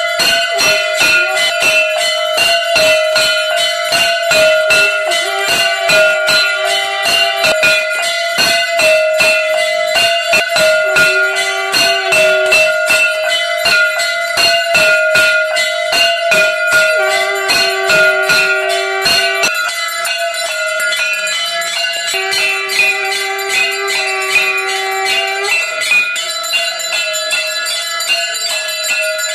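Hand-held brass gongs beaten fast and evenly for the aarti, about three strikes a second, over the steady ringing of temple bells. The quick strikes thin out about two-thirds of the way through while the bell ringing goes on.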